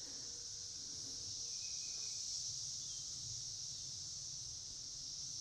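A steady, high-pitched chorus of insects droning in the woods.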